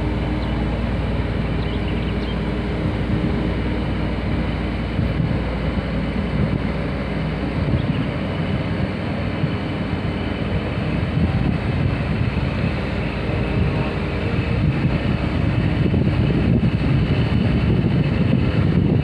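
A boat engine running steadily as a low drone, with wind on the microphone.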